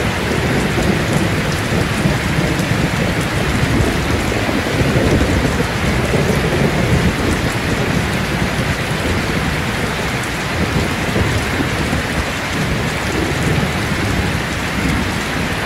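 Heavy rain pouring steadily onto a metal roof: a dense, unbroken hiss with a low, shifting rumble underneath.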